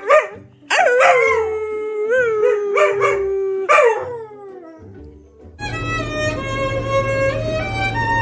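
Dog howling: a short yelp, then one long howl that slides down and holds, wavering, and rises again near the end. Violin music starts about two-thirds of the way in.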